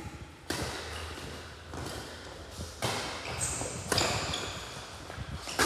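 Badminton rackets striking a shuttlecock in a rally: five sharp hits about a second apart, over a steady low hum.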